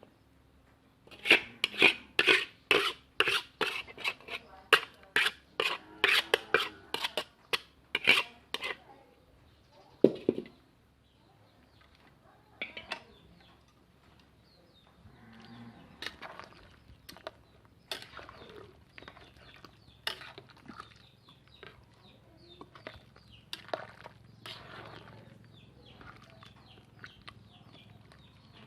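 A metal utensil clanking repeatedly against a large cooking pot, about two or three sharp knocks a second for the first several seconds, then one louder knock with a short ring; after that only faint scattered clicks.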